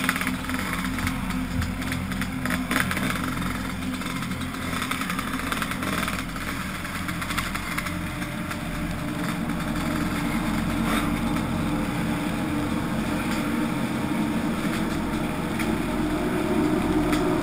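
Enduro dirt bike engine running as the bike is ridden along a dirt trail, with the rush and knocks of the ride on the mounted camera's microphone. The engine grows louder near the end.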